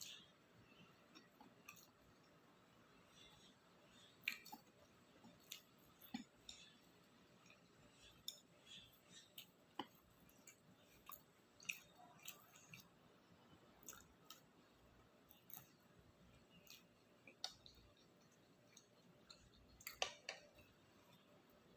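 Close-up eating sounds of takoyaki with octopus being chewed: soft, wet mouth clicks and smacks that come irregularly, one or two a second.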